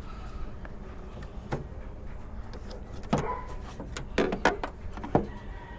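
A few scattered clicks and knocks, with a cluster of them about four seconds in, from hands handling the plastic air filter box lid and its screws under the hood, over a steady low hum.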